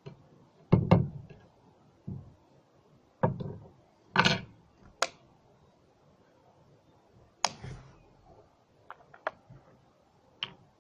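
Scattered knocks, taps and clicks as a small opened plastic battery is handled and set down on a plywood board, with a short scrape about four seconds in.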